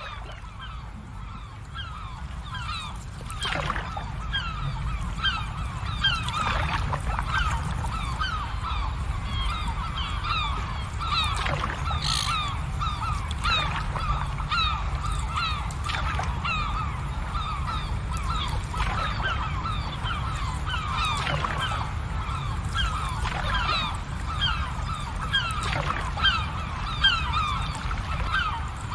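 A large flock of birds calling continuously, with many short overlapping honking calls, over a steady low rumble. The calls grow louder over the first few seconds.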